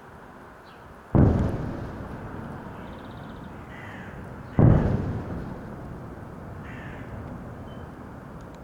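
Two heavy booms from missile explosions, about three and a half seconds apart, each starting suddenly and fading out slowly over a couple of seconds.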